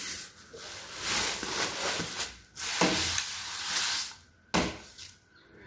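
Rustling and rubbing as a laptop is handled and turned over on bubble-wrap packaging. The sound comes in two long stretches of hiss and a short one near the end.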